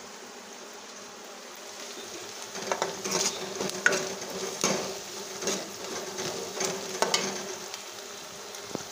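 Chopped onions sizzling in hot oil in a steel kadhai for a tadka. From about two and a half seconds in, a steel ladle scrapes and knocks against the pan about seven times as they are stirred.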